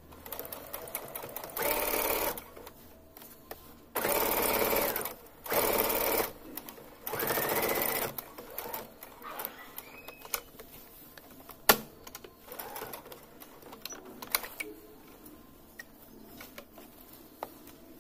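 Electric household sewing machine running in four short stop-start bursts of about a second each, topstitching close to a folded neckline edge. After that come quieter handling ticks and a sharp click about twelve seconds in, as the fabric is turned and pulled.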